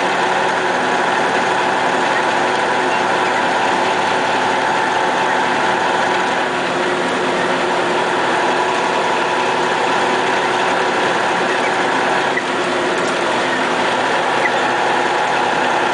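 Diesel engine of a MAZ snowplow truck running steadily under way, heard from inside the cab, with a constant rumble of road noise.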